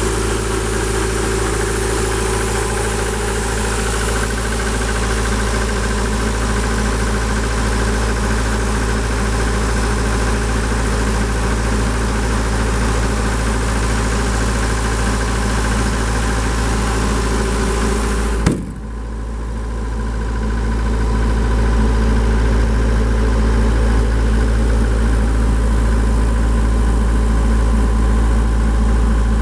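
Atlas Copco XAS 136 DD portable air compressor's Deutz turbo diesel engine running steadily. About two-thirds of the way through there is a sharp click, after which the higher hiss drops away and the low drone grows stronger.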